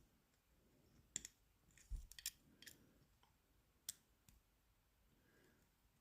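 Faint, scattered small clicks and taps, several separate ones spread over a few seconds, from a Euro cylinder lock being handled.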